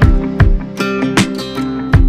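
Background music: a strummed acoustic guitar over a steady beat.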